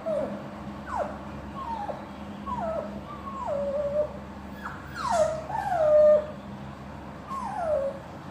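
Dog whining in a run of short cries, about ten in all, each sliding down in pitch. It is the distress of a dog left alone when its owners go out to work.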